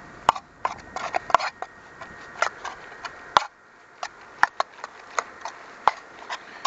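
A metal utensil clinking and scraping against the inside of a metal canteen cup as noodles are stirred, in irregular sharp clicks.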